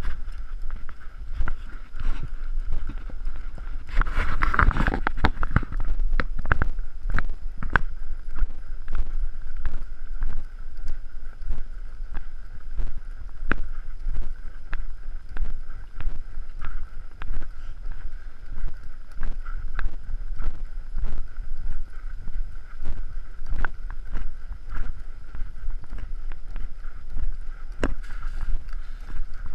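Horses' hooves clopping on a sandy trail as they are ridden, over a steady low rumble of wind on the microphone. A brief louder rushing noise comes about four seconds in.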